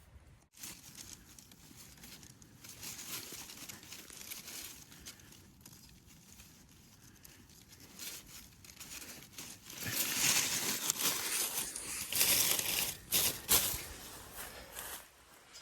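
Leafy stems and dry leaves rustling and crackling as they are handled, louder for a few seconds about two-thirds of the way through.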